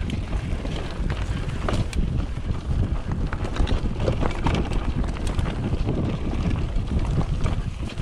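Wind buffeting the microphone while a Scott Genius 750 mountain bike rolls fast over a dry dirt trail. The tyres rumble over the ground, with many short clicks and rattles from gravel and the bike.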